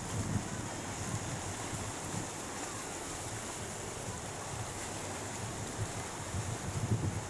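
Sea surf washing steadily against rocks, with wind buffeting the microphone in low gusts, the strongest near the end.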